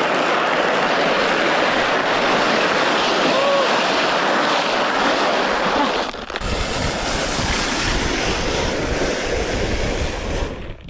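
Steady rushing noise of a sled ride: a makeshift cardboard sled sliding over ice, with wind rushing on the microphone. A deeper rumble joins about six seconds in, and the noise dies away near the end.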